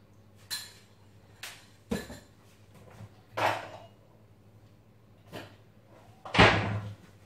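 Kitchen clatter: about six separate knocks and clinks of dishes and utensils being handled, the loudest and longest near the end.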